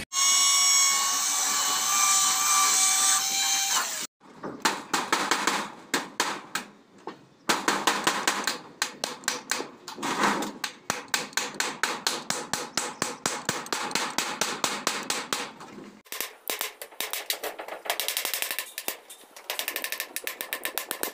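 Claw hammer tapping rapidly, several light strikes a second, nailing along the base of a wall cap over the roof flashing. It is preceded by a steady pitched whine lasting about four seconds.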